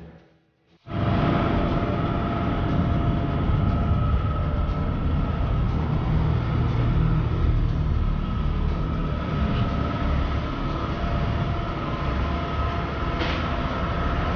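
Steady workshop background noise: a continuous low rumble with a faint steady whine, starting about a second in after a moment of silence.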